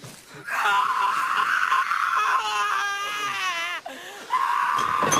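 A person screaming: two long, high cries, the first wavering in pitch before breaking off a little before four seconds in, the second starting just after and held.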